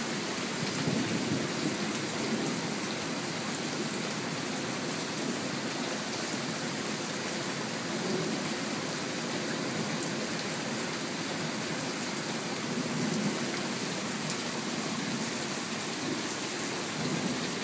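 Steady rain falling on a garden's leaves, lawn and concrete patio, a soaking downpour. Under it runs a low rumble that swells now and then.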